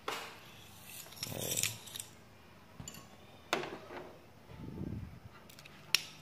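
A power cord and plastic plug being handled on a tile floor: rustling scrapes and a few sharp clicks, the sharpest near the end.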